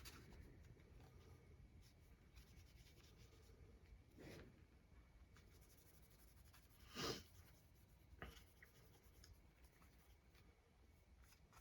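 Faint rubbing of a folded paper towel wetted with isopropyl alcohol, wiping old thermal paste off a CPU heatsink, mostly close to silence. A few clearer scrubbing strokes stand out about four and seven seconds in.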